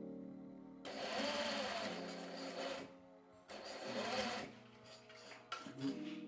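Electric sewing machine stitching in two short runs, about two seconds and then about one second, the first starting about a second in, with brief shorter spurts near the end.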